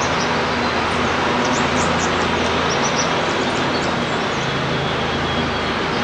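Steady, loud rushing background noise with a low hum under it, of the kind PANN files as road traffic. A few faint, short, high bird chirps sound between about half a second and three seconds in.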